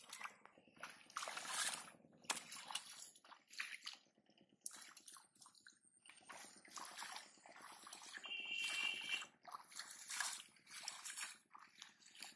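Shallow muddy water splashing and sloshing in irregular bursts as a person wades and pulls at clumps of water weed by hand.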